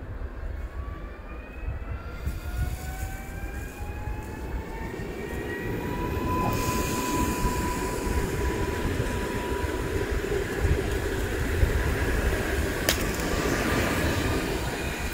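Newag Impuls electric multiple unit pulling away. Its traction drive whines in several tones that rise in pitch, then settle into one steady whine, while the rolling noise of the wheels on the rails grows louder as the train passes close. A single sharp click comes near the end.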